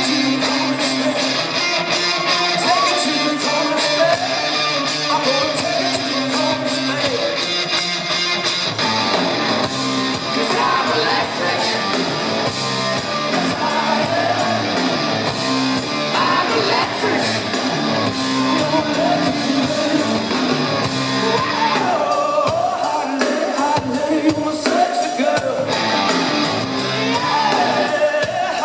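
Rock band playing live in a large hall: electric guitar over bass and drums, with some singing.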